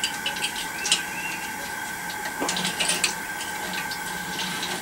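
Propane burner of an outdoor fish-fry cooker running under a pot of oil, a steady hiss with a constant hum, with a few light metallic clicks as a clip-on thermometer is fitted to the pot's rim.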